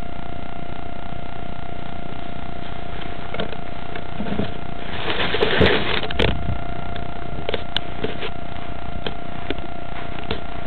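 Constant hiss with a steady thin tone underneath. About five seconds in comes a short burst of rustling and knocks as the foam Easy Star RC plane is moved through grass, followed by scattered small clicks.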